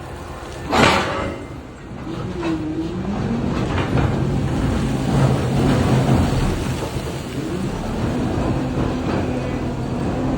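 Large electric mining excavator working, its motors giving a steady hum with pitch that rises and falls as they change speed, and one loud crash about a second in.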